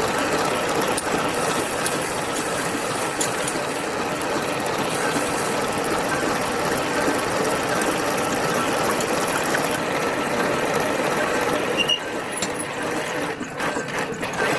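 Steady mechanical din of factory machinery running. About twelve seconds in it drops a little and gives way to separate knocks and clicks.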